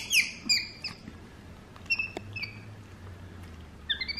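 Capuchin monkey giving high-pitched squeaky chirps: a quick run of falling chirps at the start, a few fainter ones about two seconds in, and a couple of rising calls near the end. The owner takes the calling as worry.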